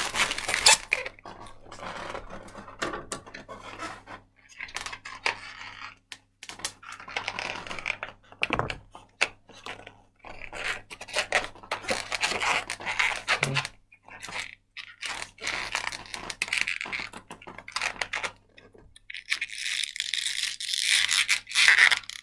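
Latex modelling balloon being twisted and worked in the hands: irregular spurts of rubbing and creaking of the rubber, with short pauses, as small bubbles are twisted off.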